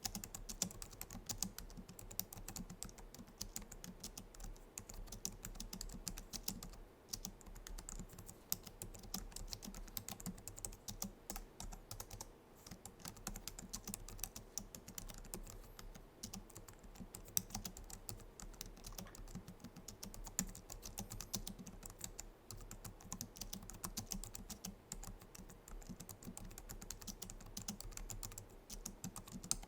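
Fast, continuous typing on a Logitech MX Keys keyboard, its low-profile scissor-switch keys clicking in a dense stream, with short pauses about seven and twelve seconds in.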